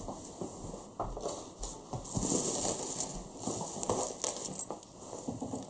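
Pen writing on notebook paper: irregular scratching strokes with small taps and paper rustles.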